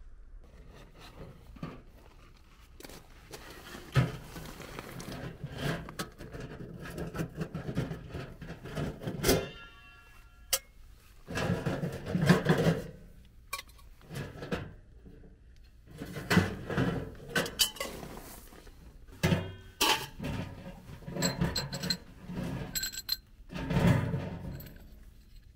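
Irregular knocks, clanks and scraping as a steel box wood stove and its stovepipe sections are handled and set down on gravel, with a short ringing tone about nine seconds in.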